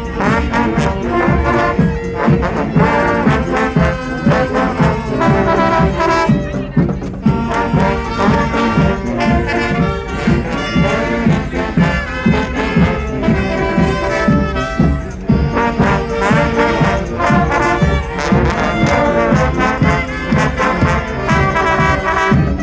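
Live street brass band playing: a full horn section carrying the tune over a steady, driving beat.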